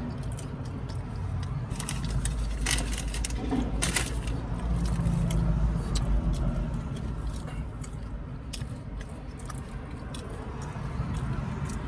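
Eating noises: scattered clicks and light rattles of a utensil against a takeout container, thickest about three to four seconds in, over a steady low rumble.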